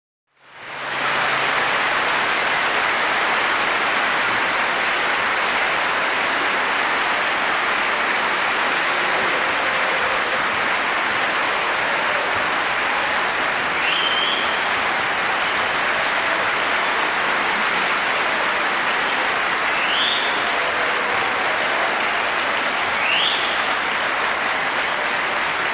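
Large crowd applauding steadily, with three short rising whistles from the crowd about halfway and near the end.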